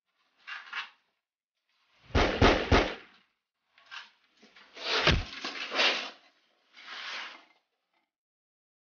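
Handgun shots in a shootout: three quick shots about two seconds in, then more bangs with a heavy low thud about five seconds in. Each burst is cut off into dead silence.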